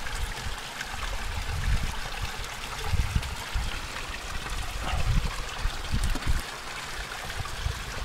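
Spring water trickling and running steadily in a log-walled plunge pool, as hands move about in the water clearing debris. A few short low thumps come through now and then, near the middle of the stretch.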